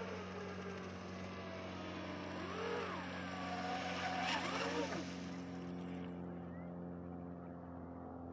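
Twin LMT 3060/5 brushless motors of an RC racing catamaran whining as the boat runs fast across the water, the pitch rising and falling twice with the throttle. About six seconds in, the high hiss drops away as the boat comes off the throttle and slows.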